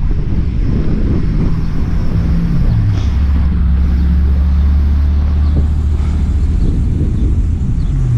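Wind buffeting the microphone of a bike-mounted camera while riding in traffic, over a car engine's low hum that drops in pitch about three seconds in and then holds steady.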